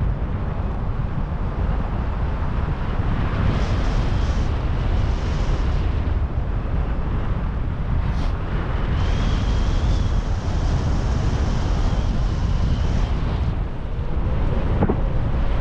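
Steady wind noise of airflow buffeting the microphone during a paraglider flight, with no engine; a faint thin high whistle comes and goes in the middle.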